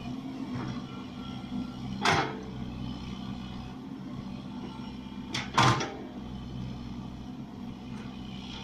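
Excavator's diesel engine running steadily while digging, with a loud metallic clank about two seconds in and a quick double clank a few seconds later.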